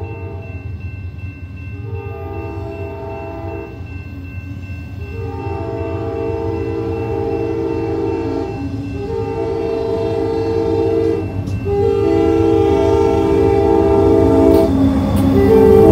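CSX diesel freight locomotive's air horn sounding a series of long chime blasts for the grade crossing, about five or six with short gaps, while the train's engine rumble underneath grows steadily louder as it approaches.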